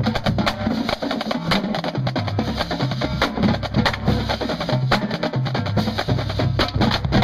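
Marching drumline playing a cadence: fast, sharp snare strokes and rim hits over tuned bass drums that step between pitches in a low melodic line. It cuts off abruptly at the very end.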